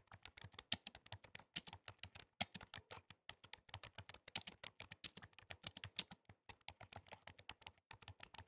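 Typing sound effect: a quick, irregular run of keystroke clicks, several a second.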